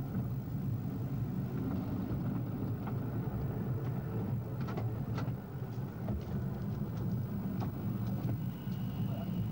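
Ride-on miniature tram running along its track: a steady low rumble from the moving car, with scattered light clicks and knocks. A faint high steady tone comes in near the end.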